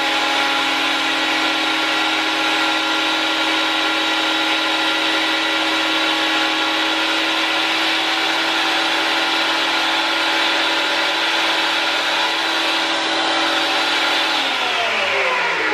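Güde GADH 200 jointer-thicknesser running at full speed with a steady whine while it planes a board, its two-knife cutter block driven by a 1250-watt motor. About 14 seconds in it is switched off and the whine falls in pitch as the motor and cutter block spin down.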